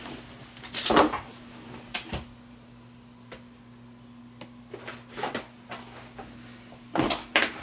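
Scattered knocks and clatters of someone rummaging through craft supplies to fetch a set of cutting dies: separate clunks about a second in, at two seconds and around five seconds, then a quick cluster near the end, over a steady low hum.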